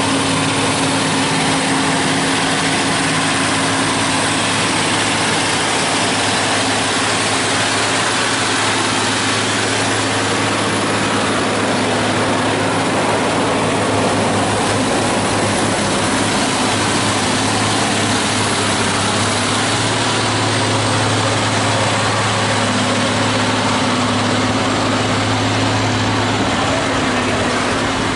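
Diesel engines of heavily loaded MAN TGS 40.440 trucks running steadily under load as they climb a steep grade, one hauling a crawler crane on a lowbed trailer. The engine note shifts slightly in pitch about two-thirds of the way through.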